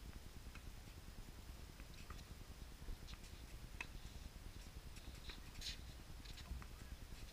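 Faint outdoor ambience: a low steady rumble with a few faint scattered ticks and clicks.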